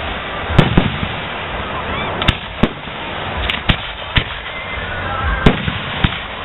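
Aerial firework shells bursting in a professional display: about eight sharp bangs at irregular intervals.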